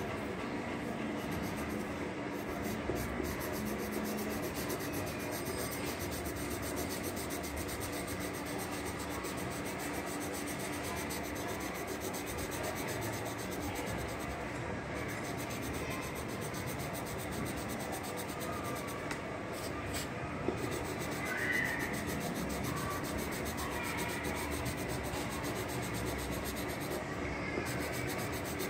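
Graphite pencil scratching and rubbing on paper during sketching and shading, continuous, over a steady low hum.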